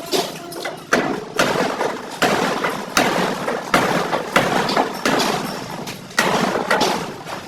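Irregular knocks and clatter on a Suzuki Bolan's sheet-metal body, typical of denting work with a hammer.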